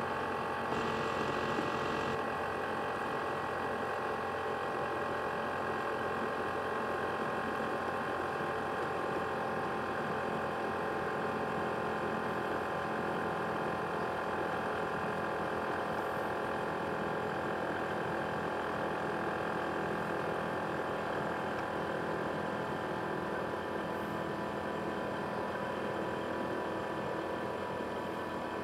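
ASUS X543UA laptop's cooling fan running at high speed, a steady whine of several tones over a fast, rattly buzz, loud enough that it is called a jet engine.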